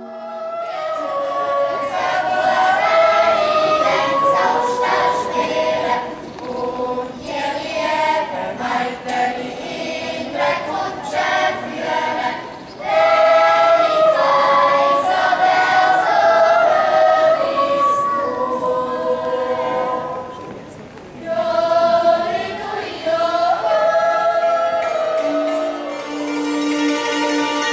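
A choir of children's voices singing a Swiss folk song, the phrases rising and falling with short breaths between them. Near the end the singing gives way to other music with long held notes.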